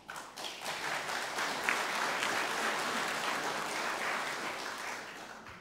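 Audience of seated delegates applauding, a dense patter of many hands that builds just after the start, holds steady and dies away near the end.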